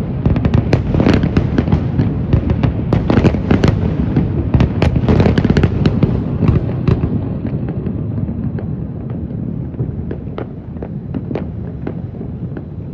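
Fireworks display: a dense barrage of bangs and crackling over a low rumble, thinning to scattered bangs after about seven seconds while the rumble fades.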